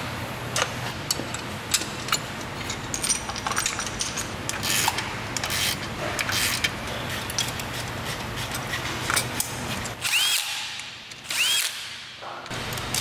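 Metal clicks and clinks of hand tools on engine parts, then a cordless power driver spinning in two short bursts near the end, its pitch sweeping up and down in each.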